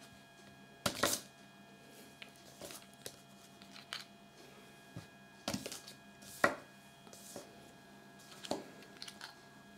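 Small plastic toy figures being handled and set down on a tabletop: scattered light clicks and taps, the sharpest about a second in and a couple more past the middle.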